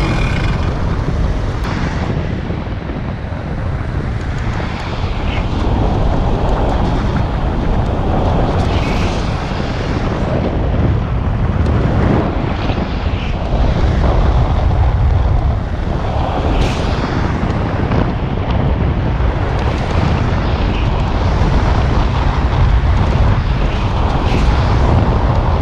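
Heavy wind rushing over the microphone in paramotor flight, a loud steady rumble with gusts rising and falling.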